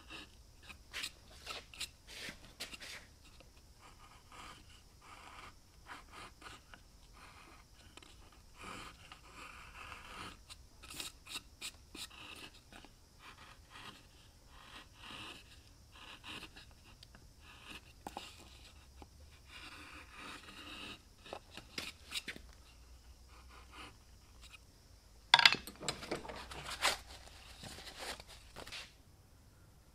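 Hand carving chisel paring shavings from the inside of a cypress toy canoe hull: a run of short, irregular scraping cuts, with a few louder cuts about 25 seconds in.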